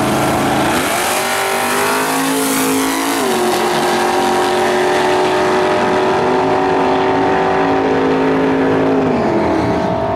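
Two drag-racing cars launching side by side at full throttle and accelerating down the strip. The engine pitch climbs, drops sharply about three seconds in, then holds steady until it falls again near the end.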